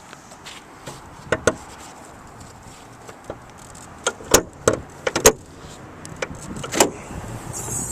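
A series of sharp clicks and clunks from a car's door and latches being worked, with two knocks about a second and a half in and a louder cluster of four about four to five seconds in.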